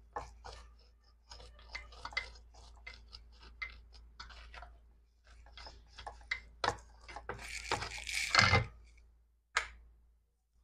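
Light, irregular clicks and taps of a car smart key module's circuit board and plastic parts being handled on a repair bench, with a louder scraping rustle lasting about a second around eight seconds in, over a low electrical hum.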